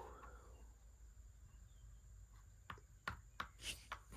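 Near silence, then five or so light, sharp clicks in the second half: the pieces of a Mensch ärgere dich nicht (Ludo-style) board game being handled and set down on the board.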